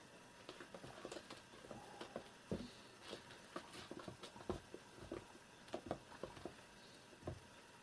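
Two kittens wrestling and scrambling on a carpeted floor: faint, irregular pattering and scratching of paws, with several soft thumps as they tumble.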